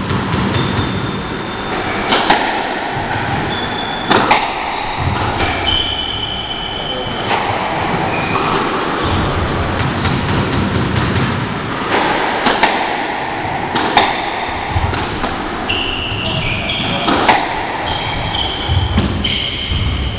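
Squash ball being struck in a rally, sharp cracks off the rackets and court walls every second or few, with players' shoes squeaking on the wooden court floor over a steady low rumble.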